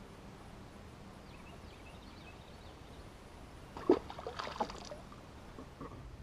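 Faint, steady water lapping against the hull of a bass boat on calm water, with a short cluster of sharp clicks and knocks about four seconds in.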